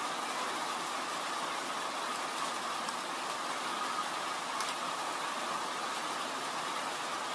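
Steady rain falling, an even unbroken hiss, with a couple of faint clicks near the middle.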